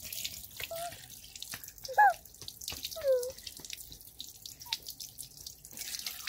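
Water running from a tap into a sink, with drips and splashes. A few short squeaky sliding tones cut through it, the loudest about two seconds in and another a second later falling in pitch.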